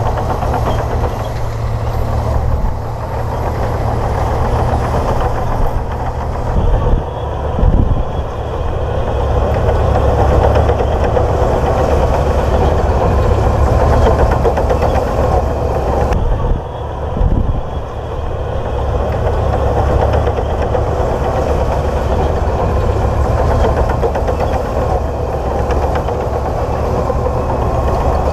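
Komatsu D58P bulldozer's diesel engine running steadily as the machine works, its sound shifting briefly twice.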